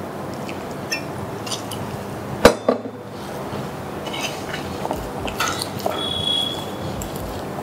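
Hands mixing wheat flour and water into dough in a wooden bowl, with a scattering of small clinks and knocks; the loudest is a sharp knock about two and a half seconds in, and more small clicks come together a little later.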